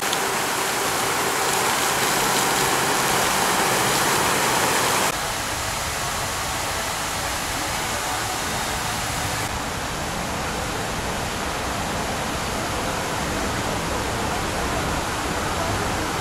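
Fountain water jets and a falling water curtain, a steady rushing splash of water pouring into a pool. The rush changes abruptly about five seconds in and again near ten seconds, as the nearer jets give way to the broader fall of the water curtain.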